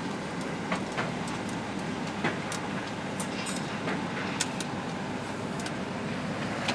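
Cummins diesel pickup truck moving slowly with an empty trailer in tow, heard from inside the cab: steady engine and road noise with scattered light clicks and rattles.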